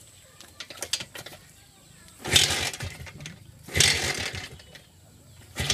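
Minsk two-stroke single-cylinder motorcycle kick-started three times, about a second and a half apart, after a few light clicks. Each kick turns the engine over for under a second, but it never fires: the spark plug gets no spark, which the owner traces to a dead ignition IC.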